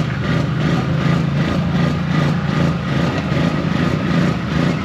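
Off-road vehicle engine running steadily close by, at an even speed without revving.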